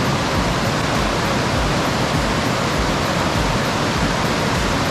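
Creek water rushing over rocky cascades: a loud, steady rush of noise with no breaks.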